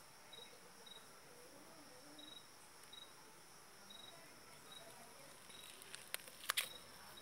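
Faint insect chirping: short high chirps repeating every half second to a second over a steady high hiss. About six seconds in come a few sharp clicks and rustles of the phone being handled.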